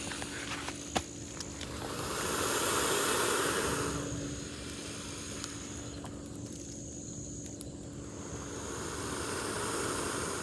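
American alligator hissing twice, each hiss a long breathy exhale of about two seconds: a defensive warning at someone close by.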